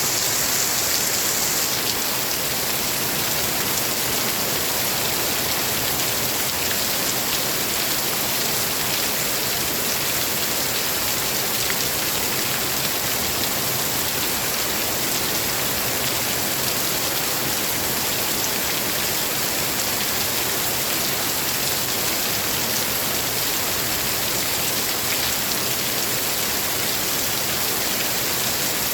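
Steady rain falling, an even dense hiss with no single drops or thunder standing out.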